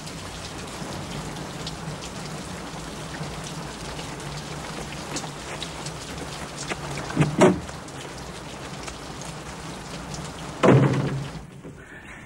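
Heavy rain falling steadily, with two short, louder sounds about seven and about ten and a half seconds in; the rain drops away abruptly near the end.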